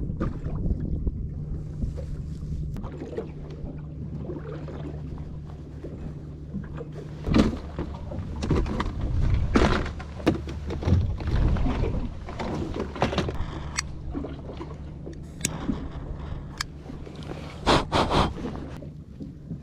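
Small boat's two-stroke outboard motor running at a steady low idle. Several knocks and clatter from handling on board, clustered around the middle and twice near the end.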